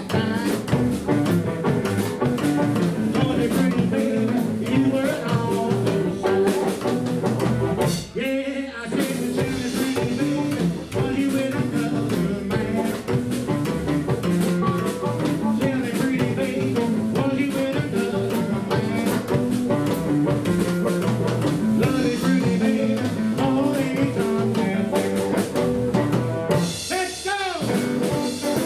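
Small vintage blues band playing live: hollow-body electric guitar, upright double bass, drum kit and harmonica, with a man singing. The band drops out for a moment about eight seconds in, then carries on.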